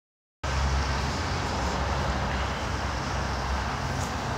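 BNSF freight train rolling past on the embankment, a steady rumble with a low hum, starting abruptly about half a second in.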